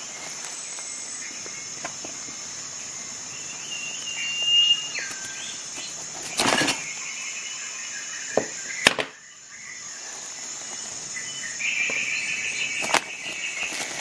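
Handling of a cut braided rope: rustling with a few sharp knocks. A high steady tone comes twice, the first near the middle stepping down in pitch and the loudest sound here, the second near the end.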